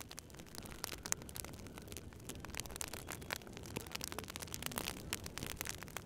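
Dry grass burning in a ditch, crackling and popping irregularly over a low, steady rushing sound.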